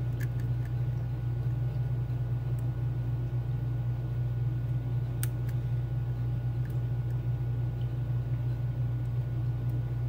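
Steady low hum of a running machine or appliance, with a few faint sharp ticks of a lock pick working the pins of a brass Mul-T-Lock Junior cylinder, the clearest about five seconds in.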